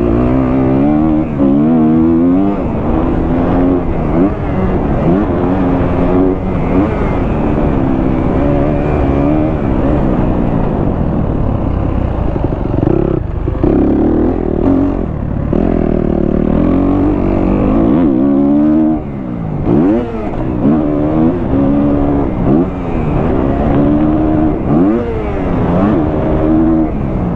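2023 Kawasaki KX250F's single-cylinder four-stroke engine, fitted with a Pro Circuit exhaust, being ridden hard: the engine note rises and falls again and again through throttle and gear changes, with a steadier stretch about halfway through.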